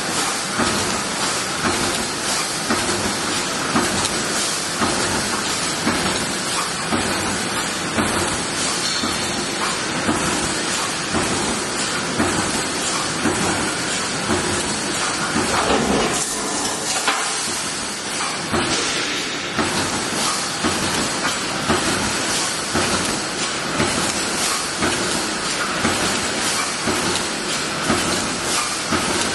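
CNC fence-mesh welding machine running, a steady dense clatter and hiss from its repeated welding strokes.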